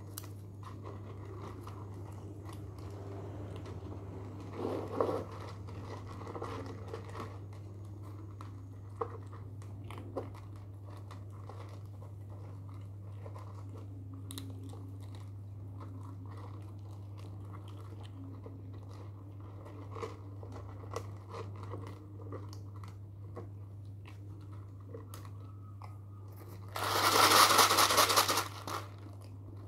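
Cats crunching and chewing dry snack food from a bowl, with faint clicks over a steady low hum. About 27 seconds in, a plastic bottle filled with dry cat food gives a loud rattle for about two seconds.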